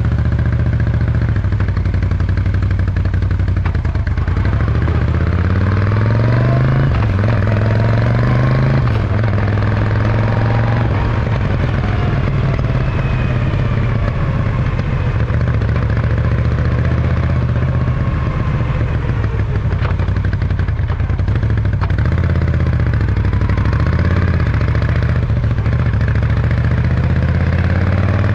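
Moto Guzzi V9's air-cooled transverse V-twin running through Zard short exhausts while riding: it pulls away and rises in pitch through the gears a few seconds in, drops at a shift, holds a steady cruise, then climbs again near the end.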